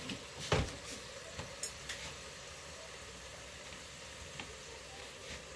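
A pan of itadori shoots sizzling lightly on a gas burner, with a sharp knock about half a second in and a few light clicks of chopsticks stirring in the pan.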